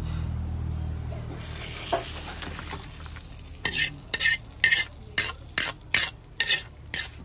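Metal ladle scraping and stirring in a wok: about ten quick, sharp strokes in the second half, over a soft hiss.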